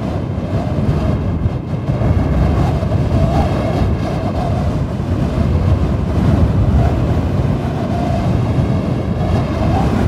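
Strong wind blowing steadily, with a deep rumble and a wavering howl over it.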